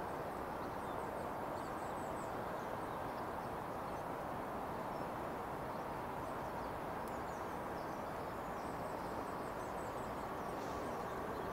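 Steady outdoor background noise with no change in loudness, with small birds chirping faintly now and then.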